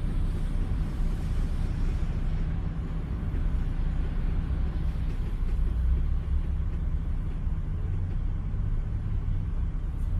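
Steady low rumble inside a car stopped in traffic, its engine idling, with rain falling on the windshield.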